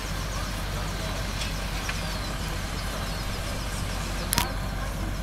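Fire engine's diesel engine running steadily, a low drone, with one sharp crack about four seconds in.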